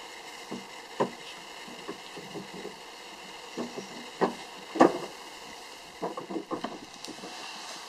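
Pile of wooden boards smouldering, giving scattered sharp crackles and pops, with a quicker run of pops near the end.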